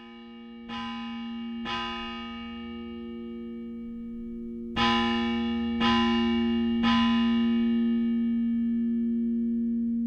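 Slow bell tones, each struck and left ringing out over a steady sustained hum. Two strikes come near the start and three about a second apart in the middle.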